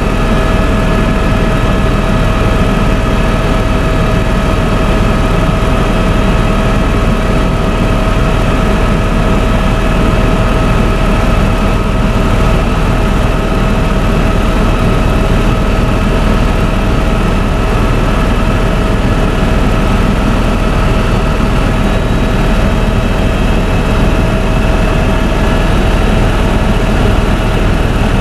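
Helicopter in cruise flight heard from inside the cabin: a loud, steady drone of engine and rotor with a constant whine over it.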